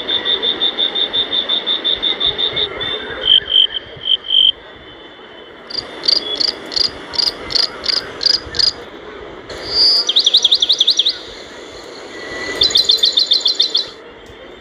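Small animals chirping in turn: first a fast, even run of high chirps, then slower pulsed chirps, then two spells of quick, falling trilled notes in the second half.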